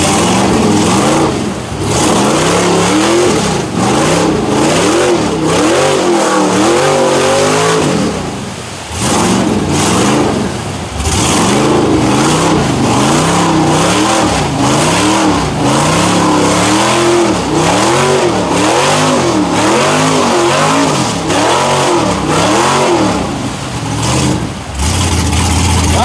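Chevrolet mud truck's LS V8 revving hard again and again, its pitch climbing and falling in repeated surges as the paddle tyres spin in deep mud. There is a brief drop in revs about nine seconds in.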